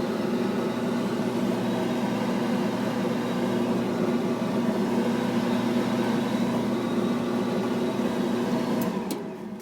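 Whirlpool clothes dryer running after being started: its drive motor and tumbling drum give a steady hum. Near the end it is switched off and winds down.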